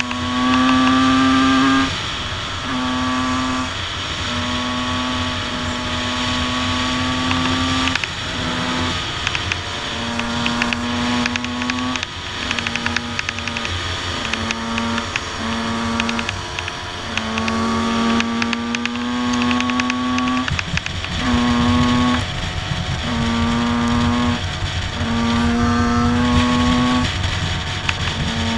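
Two-stroke motocross bike engines, a Honda CR250 and a Yamaha YZ125, running at riding speed. The engine note holds steady in stretches of one to three seconds and is broken by short dips as the throttle is rolled off and opened again.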